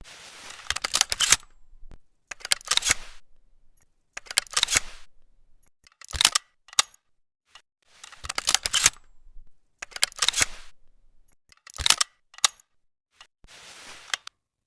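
Double-barrel shotgun handling sounds: about eight short groups of sharp mechanical clicks and clacks, each group over a brief rustle, spaced roughly every one and a half to two seconds with no shot fired.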